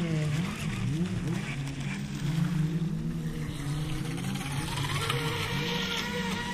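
Brushless electric motor of a Wltoys WL913 RC speedboat running at speed on a 4S lipo battery. Its whine repeatedly rises and falls in pitch as the boat circles on the water.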